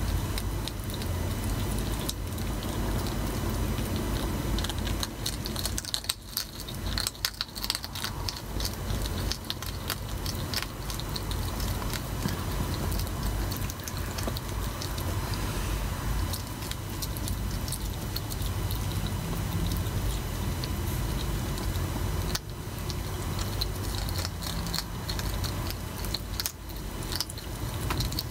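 European hedgehogs crunching and chewing dry food, a dense run of small irregular clicks and crackles over a steady low rumble.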